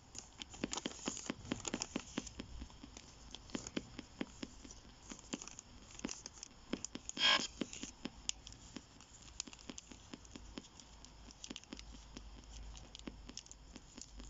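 Brown paper being folded and creased by hand: irregular soft crinkles and rustles, with one louder crinkle about seven seconds in.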